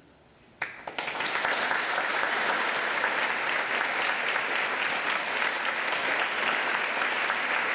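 Audience applauding. After a brief hush, a couple of early claps come about half a second in, then the audience breaks into steady applause.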